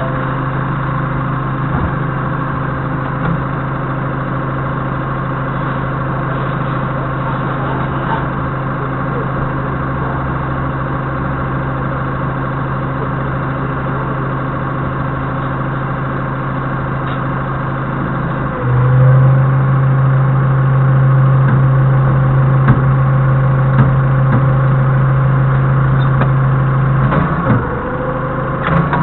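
Forklift engine idling steadily, heard from the cab. About two-thirds in it runs noticeably louder for several seconds as the mast hydraulics are worked on the load, then settles back near the end.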